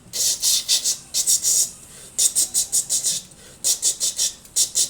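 Quick scratchy rubbing strokes, high and hissy, in five short bursts of several strokes each with brief pauses between.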